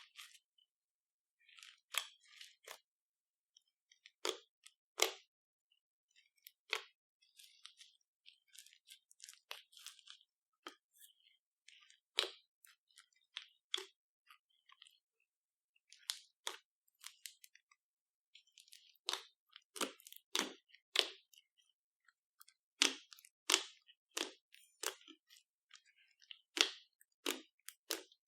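Slime being squished and folded by hand: irregular sticky clicks and pops, some louder ones bunched together in the last third.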